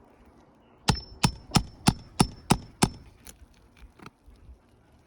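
Hammer striking a steel nail puller, seven quick blows about three a second with a metallic ring, driving it under a roofing nail to pull it from a shingle; a lighter tap follows.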